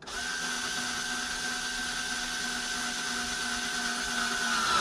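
Power drill running steadily as it drives a screw into hard plastic, its whine sagging slightly in pitch near the end as it loads up.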